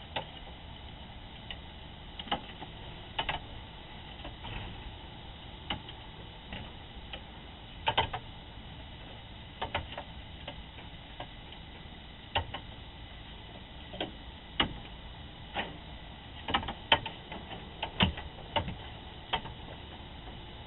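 Irregular sharp clicks and knocks, growing more frequent in the second half, from a raccoon moving about and rattling the metal nest buckets in a chicken coop. They sit over the steady hiss of a security camera's microphone.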